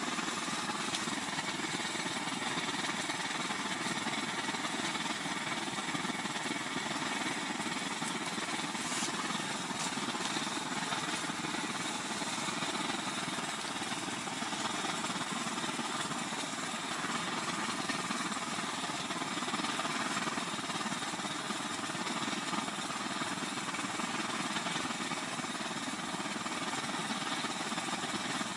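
A blowtorch burning inside a tent, a steady, even rushing noise that does not change.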